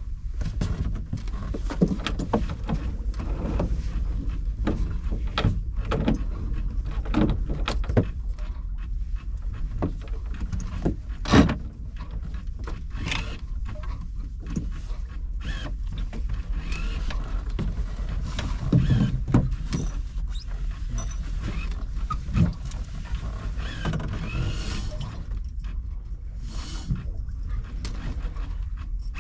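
Sailboat tacking: a sheet hauled in around a cockpit winch, with repeated clicks, creaks and knocks of lines and gear, including one loud knock about eleven seconds in. A steady low rumble of wind on the microphone runs underneath.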